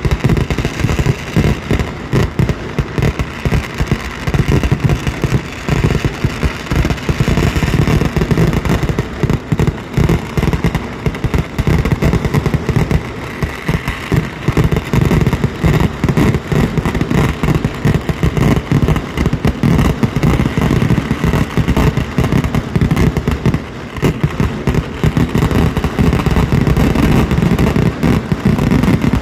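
Dense, unbroken barrage of firework explosions, many bangs a second merging into a continuous rumble, with a short let-up about two-thirds of the way through.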